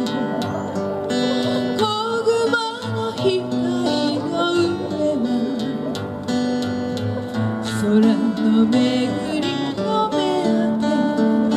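Acoustic guitar strummed as accompaniment while a woman sings a slow song melody.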